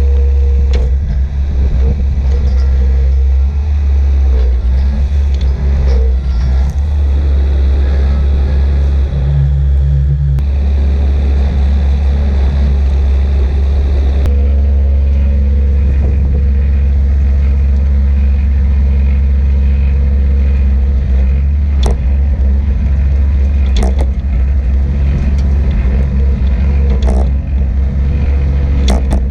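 A heavy farm machine's engine running steadily with a loud low drone, with a few sharp clicks or knocks in the second half.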